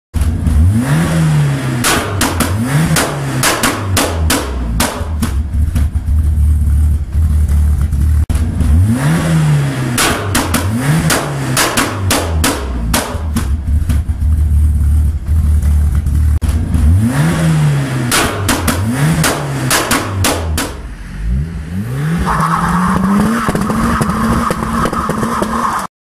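Ford Escort Cosworth's turbocharged 2.0-litre four-cylinder rally engine, stationary, idling and blipped in three bursts of two or three quick revs, each burst set off with a volley of sharp exhaust bangs and pops. Near the end the engine is held at a higher, slowly rising speed.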